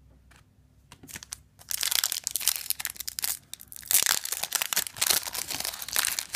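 Foil wrapper of a Yu-Gi-Oh The Secret Forces booster pack being torn open and crinkled by hand: a dense crackling that starts about a second and a half in.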